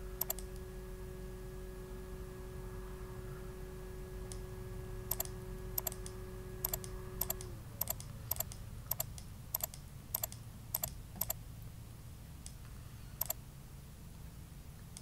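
Computer mouse button clicking, each click a quick press-and-release pair: one at the start, then a run of about a dozen clicks roughly one every half second to a second, and one more near the end. A steady low electrical hum runs underneath, with a faint tone that slides down and stops about halfway through.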